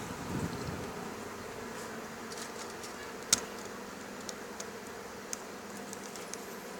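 A steady low buzzing hum under a light hiss, with one sharp click a little over three seconds in and a few faint ticks after it.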